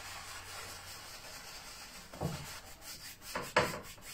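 Dry quarter-inch paintbrush rubbing lightly back and forth across a canvas, a steady scratchy brushing, as mist is dry-brushed in. A couple of short knocks about two and three and a half seconds in, the second the loudest.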